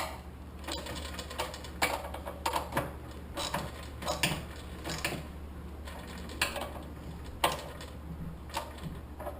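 Hand ratchet wrench worked back and forth, clicking in short irregular strokes as it tightens bolts on a small engine's carburetor and air filter adapter.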